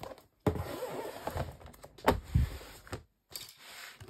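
Handling of a lever-arch binder on a tabletop: a sliding, rubbing noise for a couple of seconds with a sharp knock about two seconds in. More handling follows near the end around the binder's metal ring mechanism.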